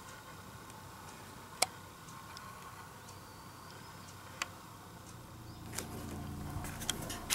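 Quiet room with two sharp single ticks a few seconds apart; near the end a low rumble rises along with a flurry of small clicks and rustles.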